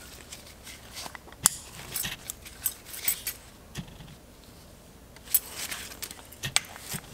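Small metal clicks and scrapes as a forged connecting rod and piston are handled and fitted together at the gudgeon pin, with rustling between the sharpest clicks about a second and a half in and near the end.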